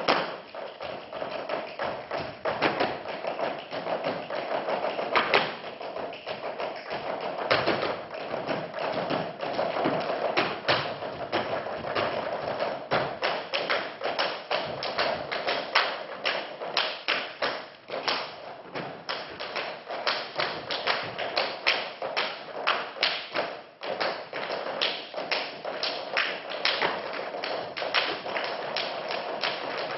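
Dancers' hand slaps and foot stamps on a wooden stage in a Hungarian Roma men's dance, a fast run of sharp percussive hits that grows denser from about halfway through, with music underneath.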